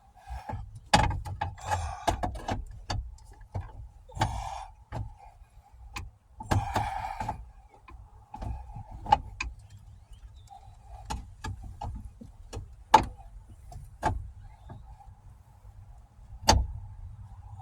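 Irregular sharp clicks and knocks with a few short scraping rustles: hands and tools working at a jammed button and its wiring under a car's hood, trying to break it off. The loudest knocks come about two-thirds of the way through and near the end.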